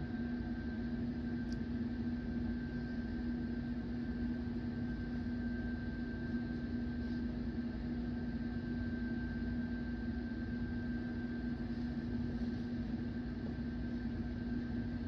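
Steady background hum: a constant low tone with a fainter high whine over even noise, and no sudden sounds.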